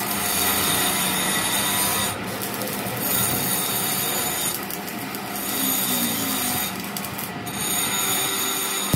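Stick-welding arc on a broken axle shaft: a steady crackling hiss with a high buzzing tone, cutting out briefly about two, five and seven seconds in as the welder stops and restrikes the arc while joining the axle.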